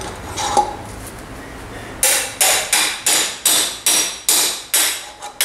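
Hammer blows on a metal drift pushed through a motorcycle wheel hub, driving out the wheel bearings. About ten sharp metallic strikes with a short ring after each, roughly three a second, beginning about two seconds in.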